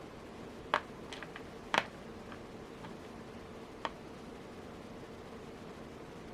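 A few light clicks of porcelain beads being picked up and threaded, the loudest just under two seconds in, over a faint steady hum.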